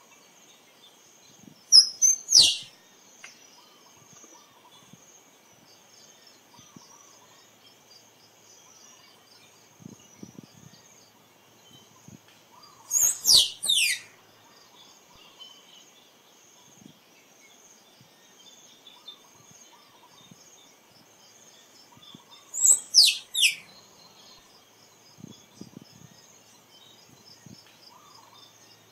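Squirrel calling: three bursts about ten seconds apart, each a quick run of about three sharp, high chirps that sweep downward in pitch.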